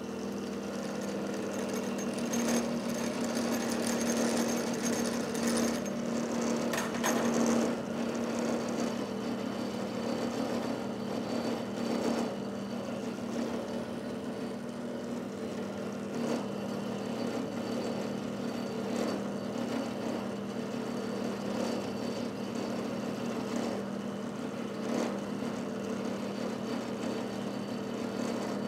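Benchtop vertical milling machine running, its end mill taking a cleanup cut across the end of a hot-rolled carbon steel workpiece: a steady spindle and motor hum under the grinding noise of the cutter in the steel, strongest in the first several seconds.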